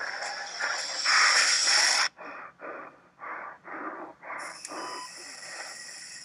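Loud rushing noise, then rapid heavy wheezing breaths, about two a second: a man gasping for air during a heart attack. A short electronic beep comes near the end.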